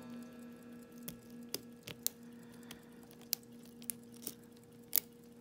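Lock pick working the pins of an Albert Lebel challenge lock cylinder, with a tension wrench in the keyway: about eight small, irregular metallic clicks, the loudest about five seconds in.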